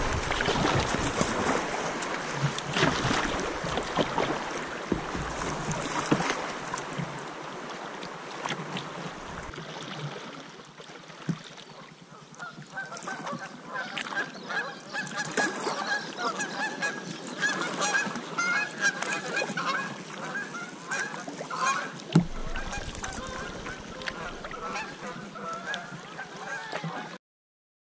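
Creek water rushing past the kayak through a riffle, fading away over the first ten seconds. From about twelve seconds in, a flock of birds calls continuously with many short, repeated calls until the sound cuts off just before the end.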